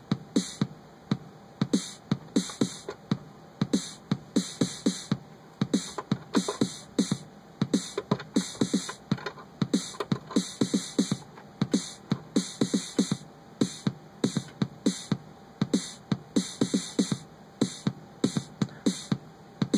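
A drum-machine beat loops from a MIDI step sequencer: electronic kick drum thumps that drop in pitch, with snare hits, in a steady fast rhythm.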